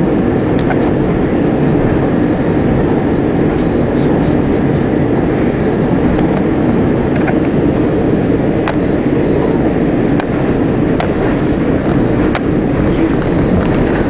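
SEPTA Market-Frankford Line elevated train running at speed, heard from inside the car: a steady, loud rumble of wheels and motors, with a few sharp clicks from the rails.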